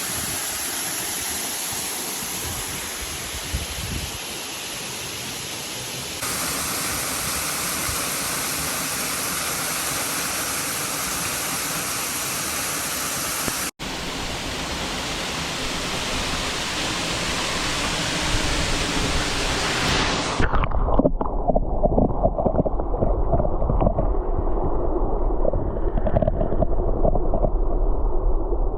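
Steady rushing water of a waterfall, broken by two abrupt jumps in the sound about 6 and 14 seconds in. About two-thirds of the way through it turns muffled and deep: the high hiss drops away and a louder low rumble takes over.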